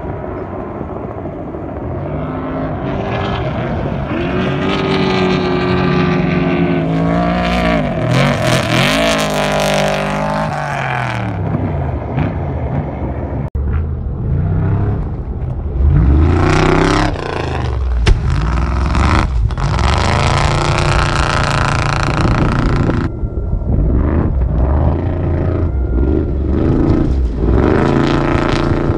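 Desert-racing trophy trucks' V8 engines revving hard as the trucks race past over the sand, the engine pitch climbing and falling with the throttle and as each truck goes by.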